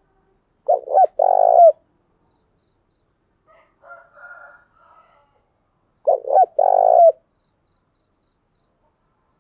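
Spotted dove cooing: two phrases about five seconds apart, each a couple of short coos followed by a longer one, with a fainter, softer call between them.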